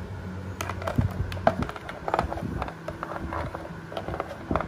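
Plastic toy tools clicking and knocking against each other and a plastic toy workbench as they are handled: a run of irregular light knocks and rattles.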